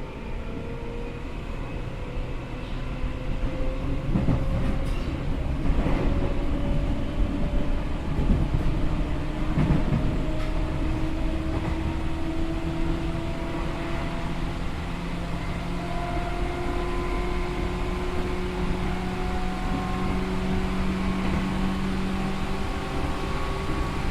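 Seibu New 2000 series electric train with field-chopper control, heard from inside the car. Its traction motor and gear whine climbs slowly in pitch as the train gathers speed. Wheel-on-rail clatter and a few knocks over rail joints or points come a few seconds in, and the running noise grows louder there.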